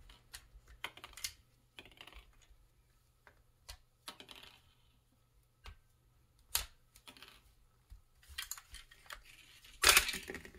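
Small plastic and metal clicks and rattles as loose screws and the plastic clamshell housing of a Ryobi P737 cordless inflator are handled, with a louder plastic clatter near the end as one housing half is pulled off.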